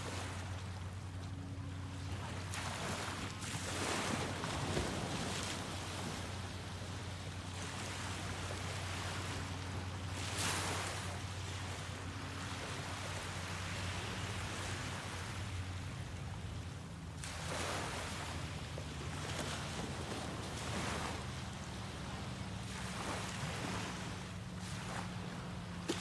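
Small ocean waves breaking and washing up on a sandy beach, the surf swelling and easing every few seconds. A faint low hum runs underneath.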